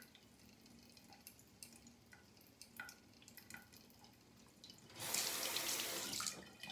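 Safety razor with a Wilkinson Sword blade scraping faint short strokes over lathered stubble, then a tap running loudly for about a second and a half near the end, cut off abruptly.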